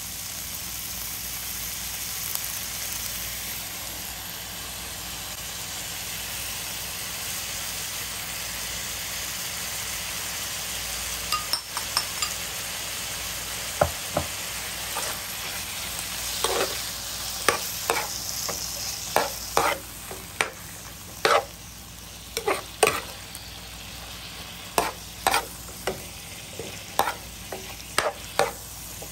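Thin slices of beef sizzling in a hot, oiled pan while being stir-fried with a metal spatula. The sizzle is steady at first; from about halfway on, the spatula clacks sharply against the pan roughly once a second over a fainter sizzle.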